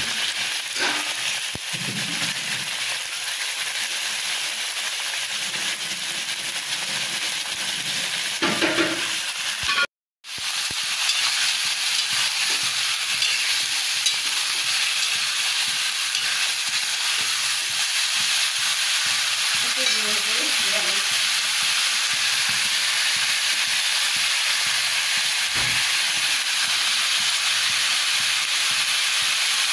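Turkey meat sizzling as it fries in a wok, a steady hiss that cuts out briefly about ten seconds in.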